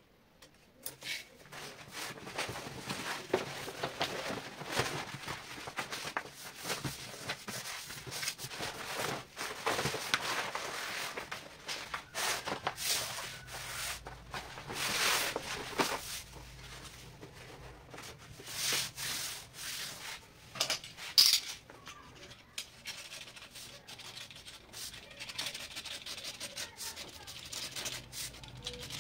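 Irregular rubbing and scraping of hands handling materials: a tape measure, a wooden board and a sheet of wallpaper sliding and being smoothed on a wooden surface. One sharp click comes about two-thirds of the way through.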